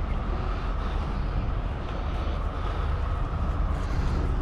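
Heavy diesel truck engine idling steadily: a low, even rumble.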